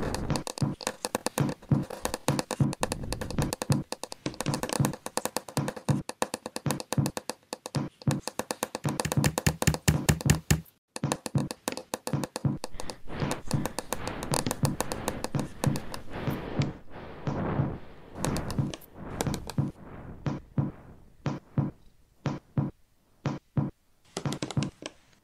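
Electroacoustic soundscape of rapid, layered knocks and taps, dense and many to the second, building to its loudest just before cutting out abruptly for a moment about eleven seconds in. It then resumes and thins out into sparser single knocks, about two a second, toward the end.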